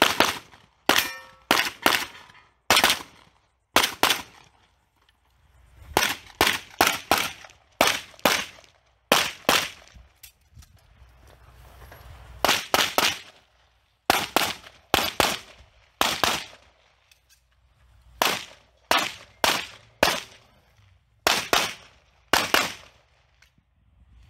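Pistol shots fired rapidly in quick pairs and triples, with short pauses between strings as the shooter moves between positions. The firing stops shortly before the end.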